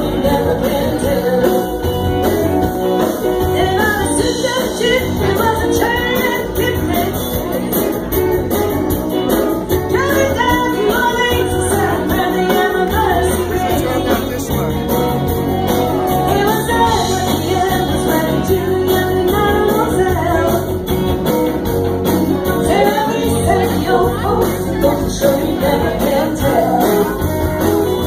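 A live band playing a loud rock-and-roll number on stage, with electric guitars and drums through the PA.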